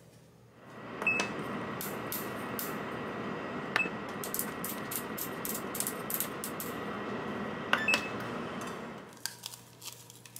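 Electric oven being set and run: a few short button beeps and quick clicks of the turning control dial over a steady whir from the running oven, which starts about a second in and stops shortly before the end.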